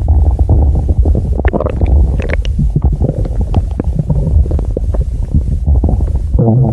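Stomach growling: a loud, continuous low rumble full of quick gurgles and pops, with a brief pitched gurgle near the end.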